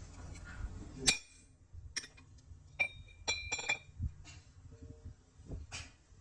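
Sharp metallic clinks of steel parts and tools knocking together as they are handled, several separate strikes with a short ringing tone, the loudest about a second in. A low machine hum dies away at the same moment.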